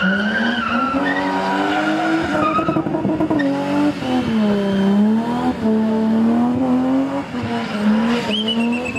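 BMW 3 Series sedan's engine held high and wavering with the throttle as the car spins in tight circles, its rear tyres squealing and smoking on the tarmac. A sharper, higher tyre squeal cuts in near the end.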